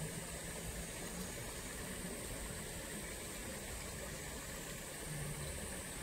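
Steady rushing of running water, an even hiss with no distinct events, with a thin steady high-pitched band above it.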